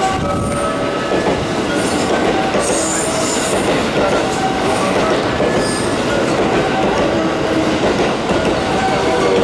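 A train running on the rails: a steady loud noise of wheels and running gear, with short high-pitched wheel squeals now and then.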